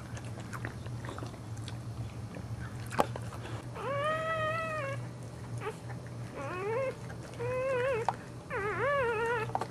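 Newborn boxer puppy crying: four high squealing cries from about four seconds in, the first held steady and the later ones wavering in pitch. A single sharp tap comes just before them, over a steady low hum.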